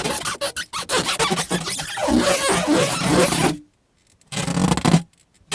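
Rasping, scraping sound effects: a fast run of clicks, then a dense scratchy noise that cuts off suddenly about three and a half seconds in, followed by one short burst of the same kind after a brief silence.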